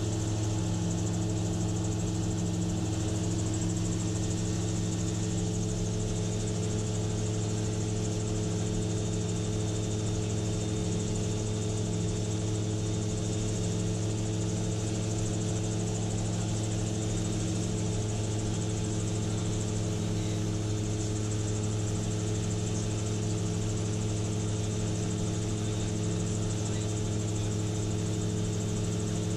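Gyrocopter engine and propeller droning steadily in cruising flight, heard from inside the cockpit, with an even hiss above the drone and no change in pitch.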